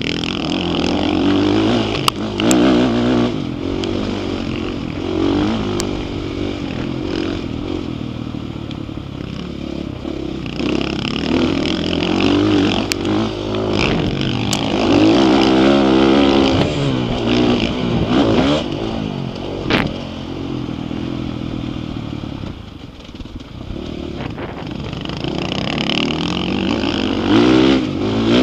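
Dirt bike engine heard from the rider's helmet camera, revving up and dropping off again and again with throttle and gear changes as it is ridden around a motocross track, with a few sharp knocks along the way.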